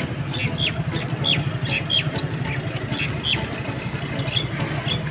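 Small caged birds chirping repeatedly, short calls that slide down in pitch, several a second, over a steady low engine-like rumble.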